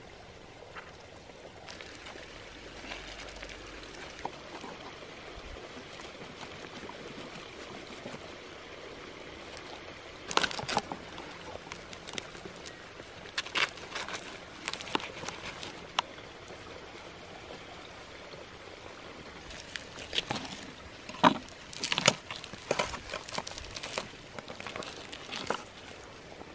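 A creek runs steadily in the background while crisp roasted turkey skin crackles and crunches as it is cut with a knife and torn apart by hand. The crackling comes in bunches: about ten seconds in, again a few seconds later, and most densely near the end.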